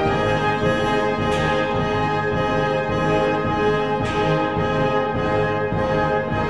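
Orchestral background music led by brass, held chords, with a crash about a second in and another around four seconds.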